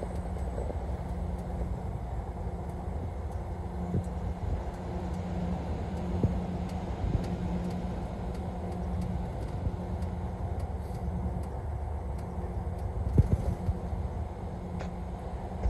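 Steady low rumble of a vehicle driving at highway speed, heard from inside the cab: road and engine noise with a constant low hum. A few short knocks come near the end.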